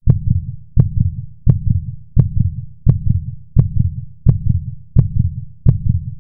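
Heartbeat sound effect: nine steady, loud, low lub-dub thumps, about 85 beats a minute, each beat opening with a sharp click.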